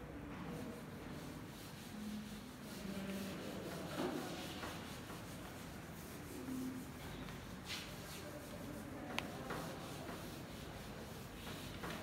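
Handheld eraser rubbing across a whiteboard in repeated wiping strokes, the scratchy swish rising and falling with each stroke. A single sharp click comes about three quarters of the way through.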